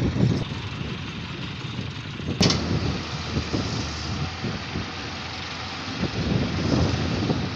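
Samsung excavator's diesel engine running, its note rising and falling irregularly, with one sharp knock about two and a half seconds in.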